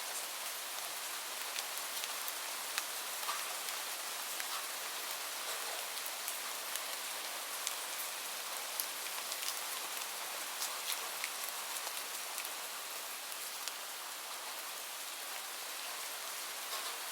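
Steady rain: an even hiss of falling rain with many individual drops ticking sharply on a surface.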